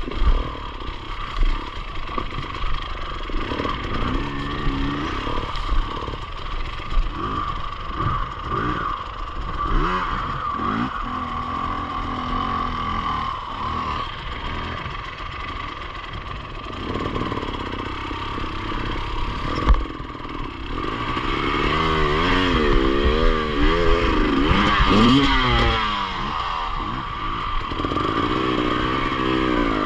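Enduro motorcycle engine running under a rider off-road, with clattering. In the second half the revs rise and fall rapidly over and over, as the throttle is worked on rough ground.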